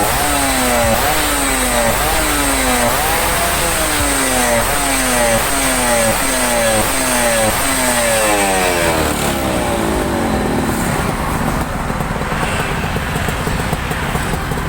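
Suzuki Tornado GS 110's single-cylinder two-stroke engine revved in quick repeated throttle blips, the pitch climbing and falling back about once every 0.7 s. About nine seconds in the revs give way to a steady rushing noise.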